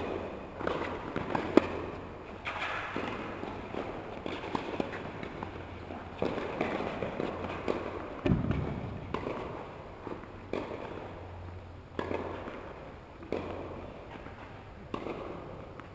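Tennis balls struck by rackets and bouncing, sharp pops echoing around a large indoor tennis hall a second or so apart, over a steady low hum. A heavier low thud comes about eight seconds in.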